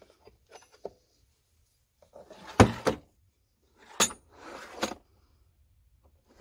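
Metal tool chest drawers sliding shut and open on their runners, tools rattling inside, each slide ending in a clunk; the loudest clunk is about two and a half seconds in, with a second slide and clunk about four seconds in. A few light clinks of tools being touched at the start.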